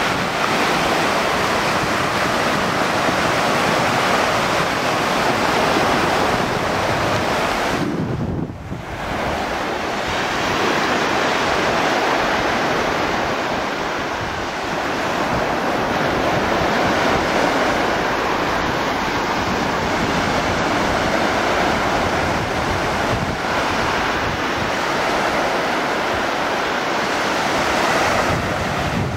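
Beach surf washing steadily, mixed with wind buffeting the microphone, with a brief lull about eight seconds in.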